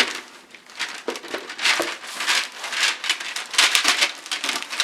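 Packaging crinkling and rustling in irregular bursts as bags of LEGO parts are handled.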